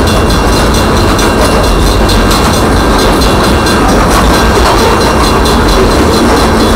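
Union Pacific coal train's open-top hopper cars rolling past, a loud, steady rumble and rattle of steel wheels on the rails.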